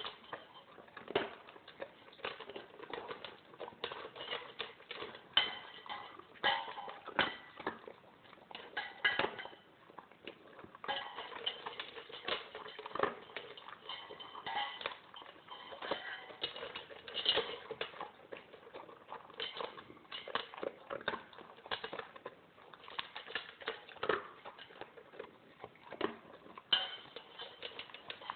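Alaskan Malamute eating dry kibble from a stainless steel bowl: irregular crunching, with clinks and knocks as muzzle and kibble hit the metal bowl.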